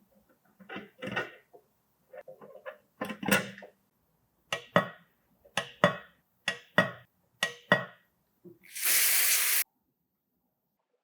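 Metal parts being handled: irregular knocks and rustles, then a run of about eight sharp metallic clicks and knocks in quick pairs, followed near the end by a burst of hiss lasting under a second.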